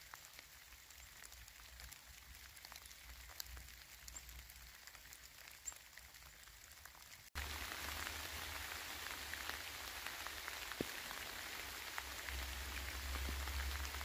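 A steady patter of many small ticks over a hiss, the sound of rain. A cut about seven seconds in brings a louder stretch of the same patter with a low rumble underneath.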